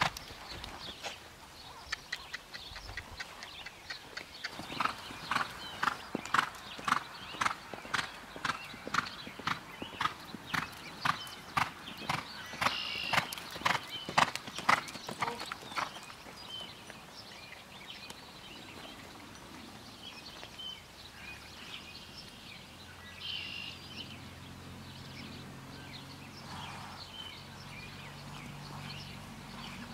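A quarter horse's hooves striking a dirt arena at a lope, a steady rhythm of about two hoofbeats a second that fades away about halfway through as the horse moves off.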